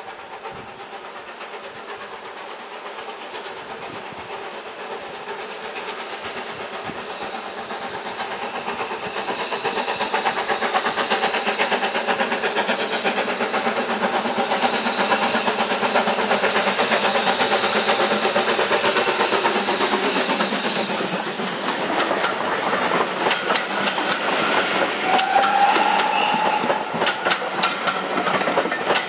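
GWR Manor-class two-cylinder 4-6-0 steam locomotive working a passenger train, its exhaust beats and steam hiss growing louder as it approaches and passes. Then its coaches roll by, their wheels clicking over the rail joints.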